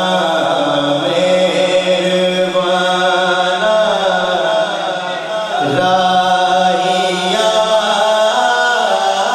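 A man singing a naat, an Urdu devotional poem, into a microphone, drawing out long held notes that slide slowly in pitch.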